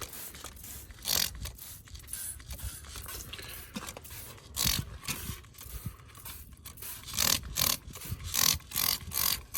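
Hand spray bottle squirting aluminum cleaner and brightener onto an ATV engine: a series of short hissing squirts, irregular and often in quick runs of two or three.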